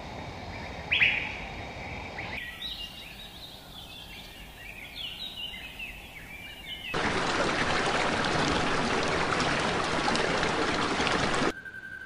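Outdoor ambience with wild birds calling: one loud short rising chirp about a second in, then a run of quick high chirps. About seven seconds in, a loud steady rushing noise takes over and cuts off abruptly near the end.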